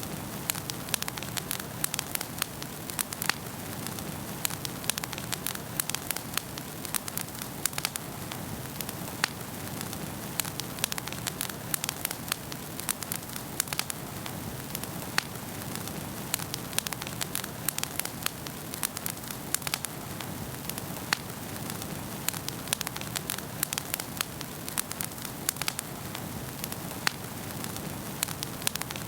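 Wood fire in a fireplace crackling, with frequent irregular sharp pops over a steady soft hiss.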